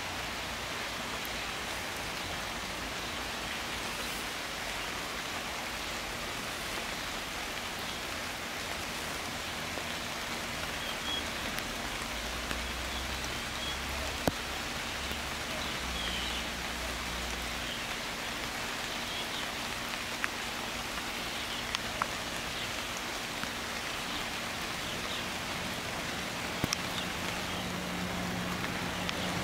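Steady rain falling on leaves and grass, an even hiss, with a few faint high chirps and sharp ticks here and there.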